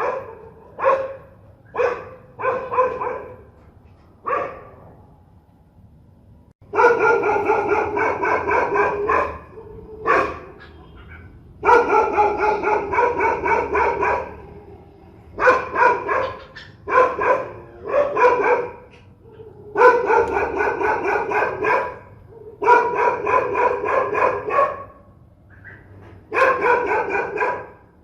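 Fierce dogs barking. A few single barks come first, then long runs of rapid barks lasting a second or two each, with short pauses between the runs.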